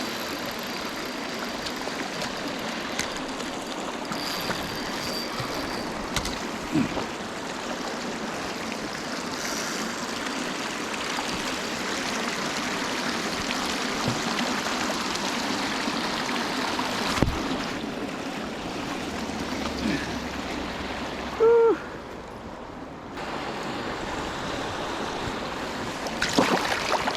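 River water running steadily over a riffle. About three-quarters of the way through, a brief loud pitched squeak stands out, and a few short knocks come near the end.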